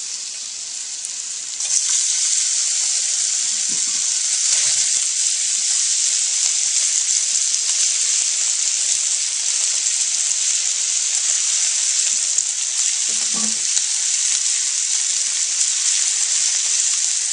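Chopped bacon and mushrooms sizzling in a hot frying pan. The sizzle steps up louder about two seconds in.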